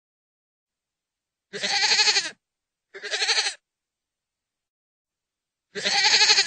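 Goat bleating three times, each bleat a quavering call under a second long, with dead silence between them.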